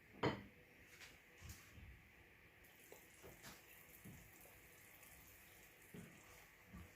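Pepper sauce simmering in oil in a pan: faint, scattered bubbling pops and ticks, with one sharper click just after the start.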